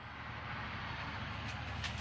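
Low, steady rumble of a passing motor vehicle, building up just before and holding level throughout.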